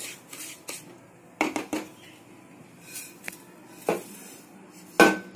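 Spatula scraping dry roasted semolina around a nonstick kadai, then clatters of the pan and spatula against a steel plate as the rava is tipped out. The loudest knocks come near the end.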